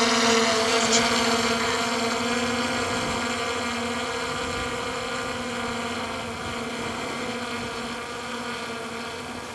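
DJI Mavic Air 2 quadcopter's propellers buzzing at a steady pitch, growing gradually fainter as the drone flies away.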